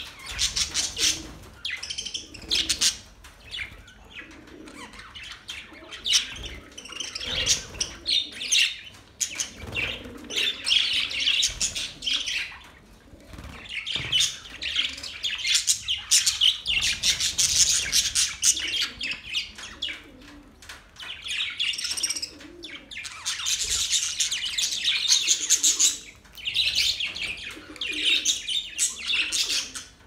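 A flock of budgerigars chattering and chirping: dense, fast warbling in long bouts, with a few short lulls between them.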